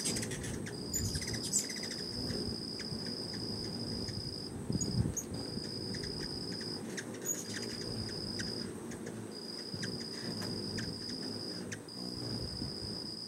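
Hummingbirds' wings humming as they hover close around a hand-held feeder, with scattered short high chip notes. Behind them runs a steady high insect trill that breaks off briefly every few seconds.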